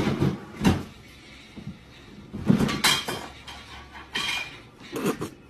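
A handful of irregular knocks and clatters: a cat clambering on a plastic trash can and knocking against its lid.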